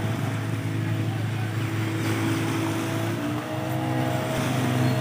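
Outboard motor of a small motorboat running on the water, a steady engine note whose pitch shifts about three seconds in, growing louder toward the end.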